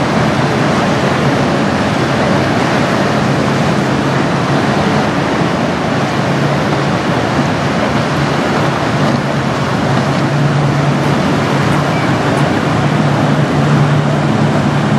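Steady low engine drone from passing boats over a constant rush of water and wind noise, the drone growing somewhat stronger in the second half.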